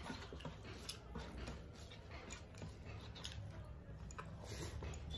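Eating by hand: scattered small smacks and clicks of chewing and of fingers mixing rice and curry on metal plates, over a steady low hum.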